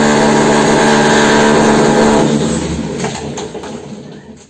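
Electric power tool running with a steady, loud hum during demolition of a block wall, dying away gradually over the last couple of seconds.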